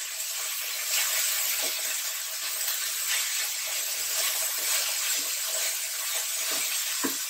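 Diced apple frying in ghee in a kadhai over a medium flame: a steady sizzle, with light scrapes and taps of a silicone spatula stirring the pieces.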